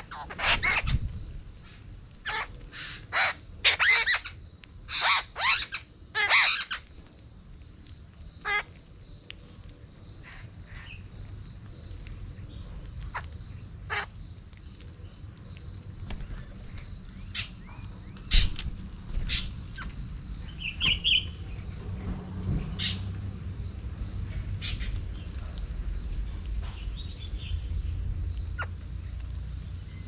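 Jungle babblers calling: a flurry of loud, harsh squawks in the first seven seconds or so, then scattered shorter calls. A low background rumble builds through the second half.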